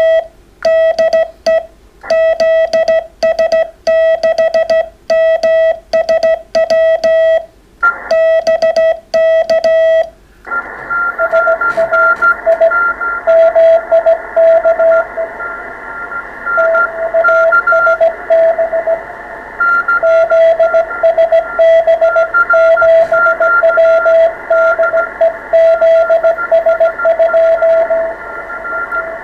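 Morse code (CW) keyed as a clean tone of about 650 Hz in dots and dashes, with no background hiss: the radio's sidetone while sending. About ten seconds in the receiver opens to band hiss, with incoming Morse signals keyed at two pitches, one low and one higher.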